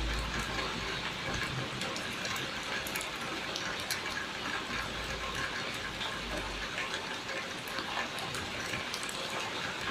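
Steady rain falling: an even hiss of rain with many small drop ticks through it, and a low rumble under it at times.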